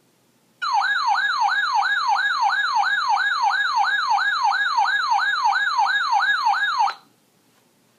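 Electronic siren in a fast yelp, its pitch sweeping up and down about three times a second. It starts about half a second in and cuts off sharply about seven seconds in.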